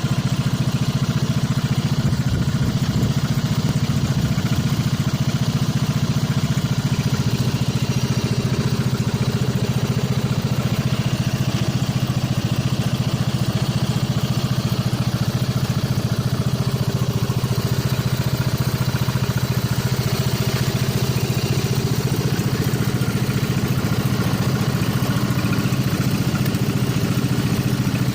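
Lawnmower engine running steadily at one even speed.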